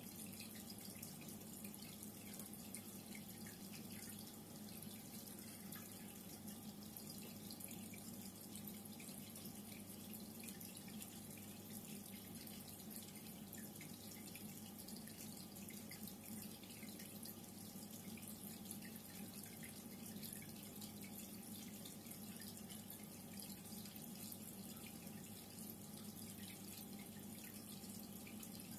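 Reef aquarium water circulating: faint, steady trickling and dripping over a low, even hum.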